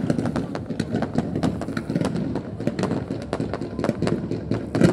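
Fireworks display going off: a rapid, irregular run of bangs and crackles over a steady low rumble.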